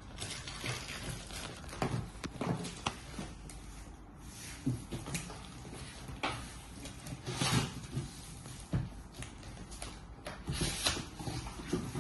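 Cardboard box being opened by hand: packing tape and strapping cut and pulled away, and cardboard flaps scraping and rustling in short, irregular strokes.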